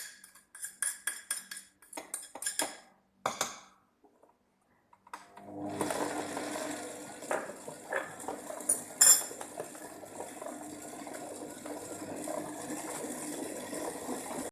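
A few quick clinks of utensils against a bowl, then from about five seconds in a stand mixer starts and runs steadily with a constant hum, kneading brioche dough.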